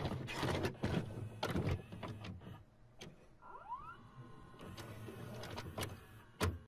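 VCR tape mechanism clicking and clunking as it goes from stop to play, with a short rising motor whine about three and a half seconds in.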